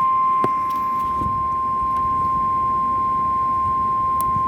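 NOAA Weather Radio 1050 Hz warning alarm tone: a single loud, steady pitch held throughout, with faint radio static beneath and a faint click about half a second in.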